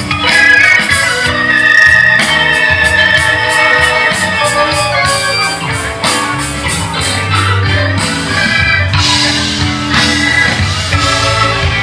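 Live rock band playing loudly through a PA sound system: sustained held notes over bass and a steady drum beat.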